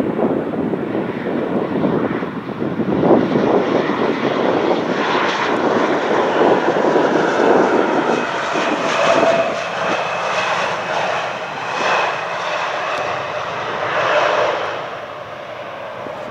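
Loud engine noise with a rushing hiss that swells and then dies away near the end.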